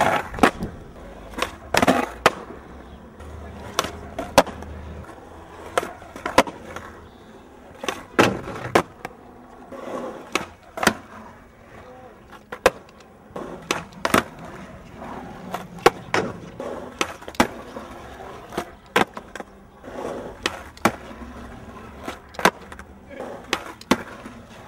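Skateboard wheels rolling on concrete, with many sharp, irregular clacks as the board slaps and lands on the ground during tricks.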